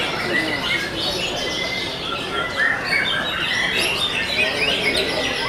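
Several caged white-rumped shamas (murai batu) singing at once: a dense, continuous tangle of rapid whistles, chirps and trills.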